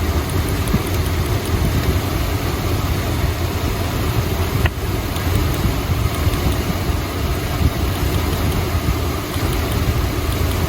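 Chrysler 440 V8 idling steadily while its spark plug wires are unplugged one at a time in a cylinder-by-cylinder misfire check, with a single sharp click about halfway through.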